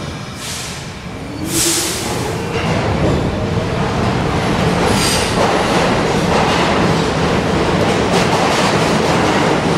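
Subway train at the platform: two short hisses of air in the first two seconds, then a motor whine rising in pitch over a steady, loud rumble of wheels on rails.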